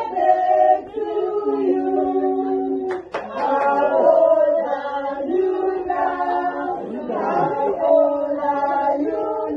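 A group of voices singing together unaccompanied, in long held notes. There is one sharp click about three seconds in.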